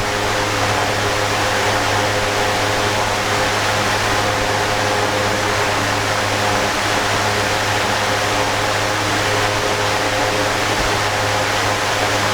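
Electric stand fan running steadily: an even rush of air over a constant low motor hum, with faint steady tones above it.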